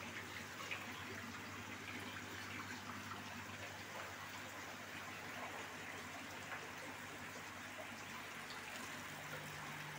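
Water trickling and splashing steadily in fish-rearing tanks, over a low steady hum that is joined by a second hum near the end.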